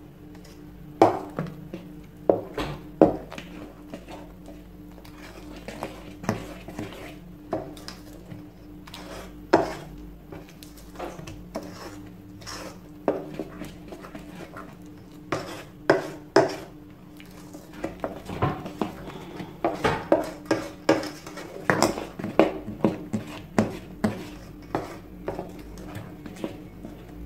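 Thick fruit-cake batter being stirred by hand in a stainless steel bowl: the mixing utensil knocks and scrapes against the metal sides in irregular clicks, coming thickest about two thirds of the way through, over a low steady hum.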